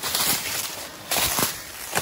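Footsteps crunching through dry fallen leaves on the forest floor, a heavy step about every second with leaf rustle in between.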